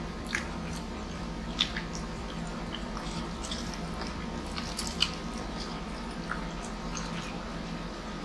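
Close mouth sounds of people eating rice and grilled chicken by hand: scattered wet clicks and smacks of chewing, the sharpest about five seconds in, over a steady low hum.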